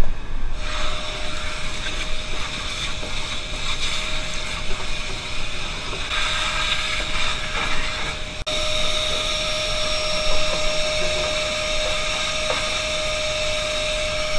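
Vacuum cleaner switching on about half a second in and running steadily with a whine. It drops out for an instant just past the middle, then runs on a little louder.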